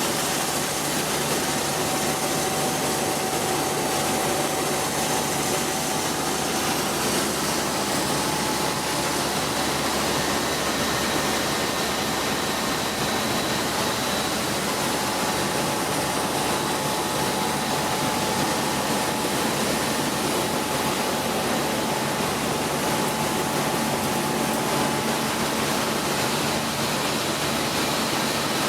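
Flour milling machine running steadily: an even mechanical rushing noise with a faint steady whine, unchanging throughout.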